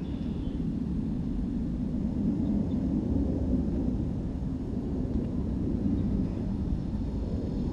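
Steady low rumbling noise with no distinct sounds in it.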